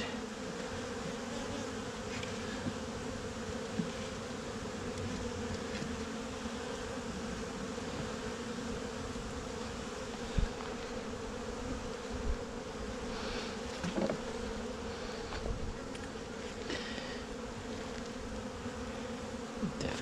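A honeybee colony in an open hive buzzing as a dense, steady hum. A few light knocks sound over it about halfway through.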